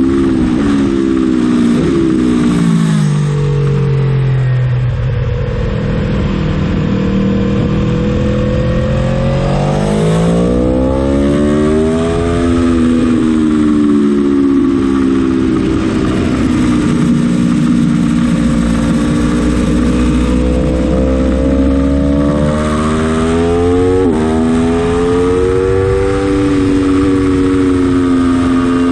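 Aprilia Tuono motorcycle engine under hard use on a racetrack: its pitch falls over the first few seconds as the bike slows, stays low for a while, then climbs as it accelerates, swelling and dipping through the corners, with a brief break near the end followed by steady high revs.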